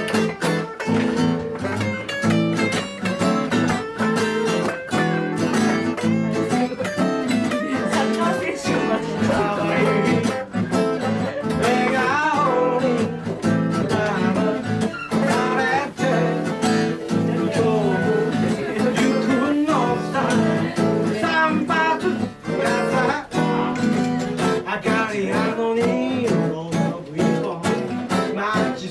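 Live guitar music: an acoustic guitar strummed in a steady rhythm with an electric guitar playing along.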